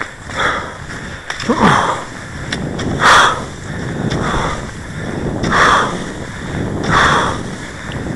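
Cross-country skis and poles on a groomed classic track, a rhythmic swish about every second and a half, six in all, with the stride.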